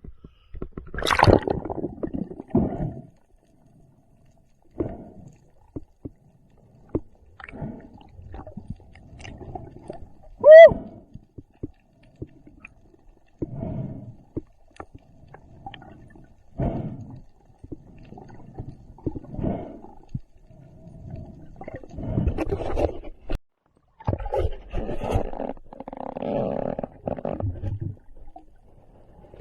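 Underwater gurgling with irregular scraping knocks. About ten seconds in comes one short squeal that rises and falls in pitch, the loudest sound.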